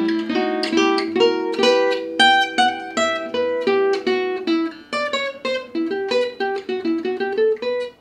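Gypsy jazz acoustic guitar playing a fast jazz lick in E minor: a quick run of picked single notes with half-step approach notes, some notes ringing on under others.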